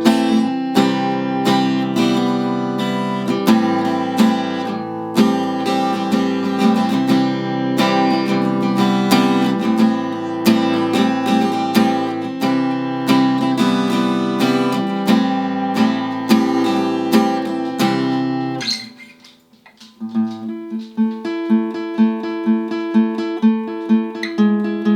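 Acoustic guitar strumming chords. The playing stops briefly about nineteen seconds in, then picks up again with a steady rhythmic pattern of about two strokes a second.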